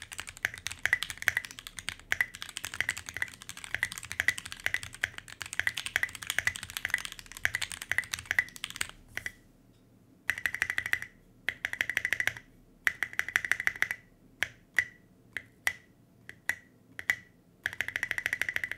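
Typing on a custom 60% mechanical keyboard with lubed and filmed Banana Split linear switches on a brass plate: a fast, steady run of keystrokes for about nine seconds. After a short pause the spacebar alone, on lubed C3 Equalz stabilizers, is pressed in quick flurries, then in single strokes about two a second, then in a quick flurry again near the end, each press with a short ring.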